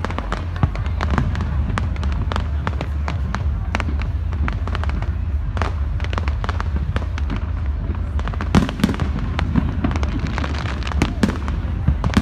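Fireworks display going off: an irregular, continuous string of bangs and crackles, with a few sharper bangs about two-thirds of the way in and near the end, over a constant low rumble.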